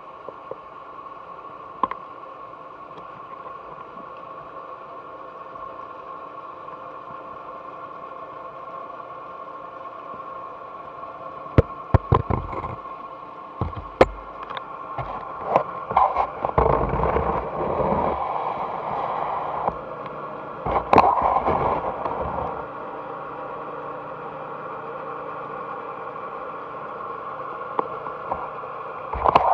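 Underwater sound inside a fish tank, picked up by an action camera mounted on a stick: a steady hum with several fixed tones. Sharp knocks and scrapes cluster between about 12 and 22 seconds in and again at the very end as the stick and camera bump against things in the tank.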